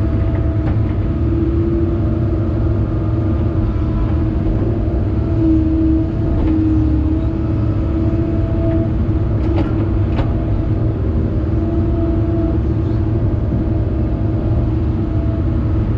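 Excavator's diesel engine running steadily, heard from inside the cab, with a constant whine over the drone as the bucket backfills dirt around concrete piers. A few faint clicks come near the middle.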